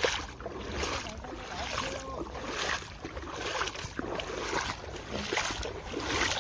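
Footsteps wading through shallow seawater on a tidal flat, sloshing and splashing about once a second.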